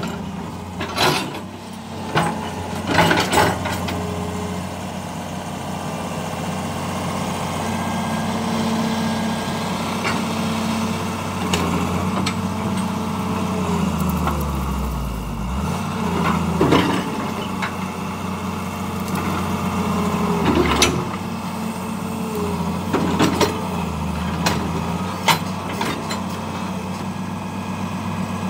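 Hydraulic excavator's diesel engine running steadily; its note drops and recovers a few times, mostly past the middle. A few short, sharp knocks stand out over it.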